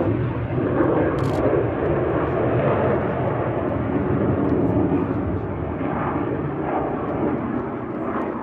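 Sukhoi Su-27 jet fighter's twin AL-31F turbofan engines in flight overhead during a display turn: a loud, steady, deep jet rumble that eases slightly toward the end.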